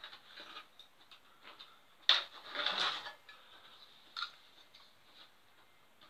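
Metal drawing tools, a straightedge and steel dividers, handled on a plywood board: small taps and clicks, a sharp knock about two seconds in followed by about a second of rubbing noise, and another click a little after four seconds.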